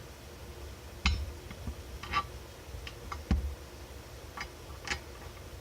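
Scattered light clicks and knocks of a drum-brake backing plate being handled and fitted into place, with one heavier thump about three seconds in.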